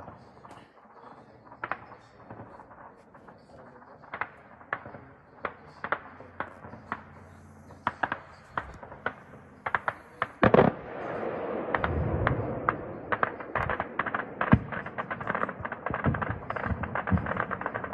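Small-arms gunfire: scattered single shots, turning into heavy rapid fire from about ten seconds in.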